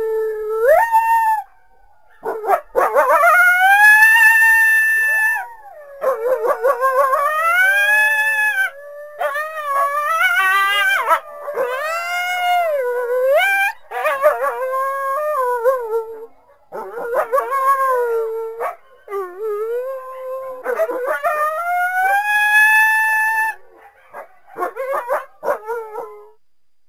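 Coyote howling: a string of long, wavering howls that rise and fall in pitch, with short breaks between them and a few short yips near the end.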